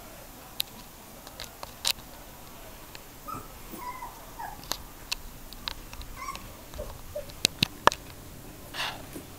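Three-week-old border collie puppies making brief, faint squeaks and whimpers. Several sharp clicks are heard, the loudest a quick cluster a little before the end.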